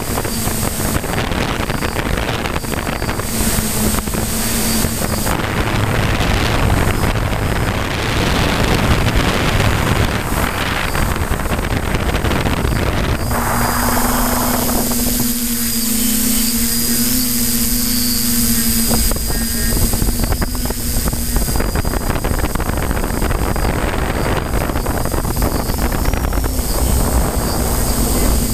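F550 hexacopter's electric motors and propellers humming steadily, with a high whine above, heard from the camera on board and mixed with wind rushing over the microphone. About halfway through the wind eases for several seconds and the propeller hum comes through clearly before the rushing returns.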